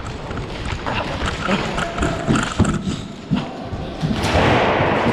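Footsteps thudding irregularly as people move quickly, mixed with rustling gear, with a rushing noise coming in near the end.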